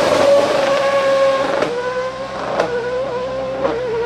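Formula Renault 3.5 race car's V8 engine running hard at high revs as the car pulls away, one steady high engine note that sinks a little in pitch, broken by three short sharp cracks about a second apart.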